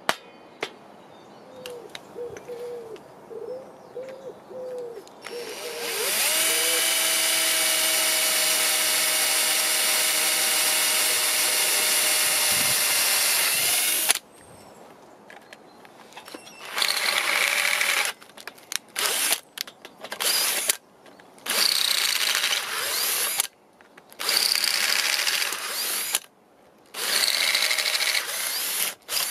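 A single sharp hammer tap on a centre punch, then a power drill running steadily for about nine seconds as it bores through a thin steel disc. It is followed by about six shorter bursts of drilling as more holes are made in the disc.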